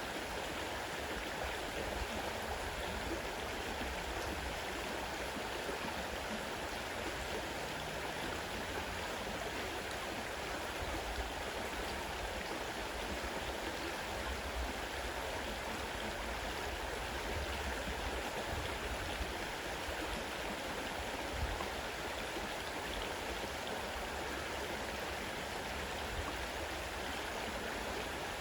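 Fast-running river rushing steadily, an even, unbroken wash of water noise.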